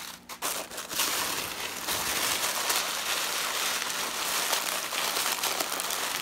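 Tissue paper rustling and crinkling as a hand rummages through it in a cardboard box, starting about a second in and going on steadily.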